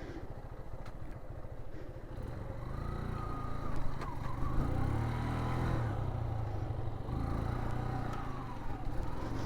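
Motorcycle engine running at low revs, growing louder about two and a half seconds in and easing slightly near the end.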